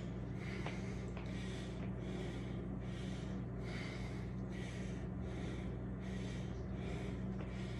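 A man breathing hard and fast, winded after a round of burpees, with a breath roughly every 0.7 seconds, over a steady low hum.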